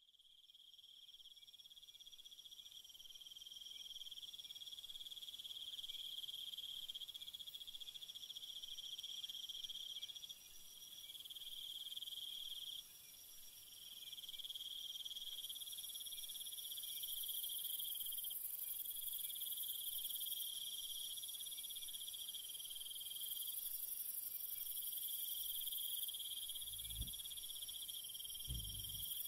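Steady high-pitched insect trilling, fading in over the first few seconds. Two soft low thumps come near the end.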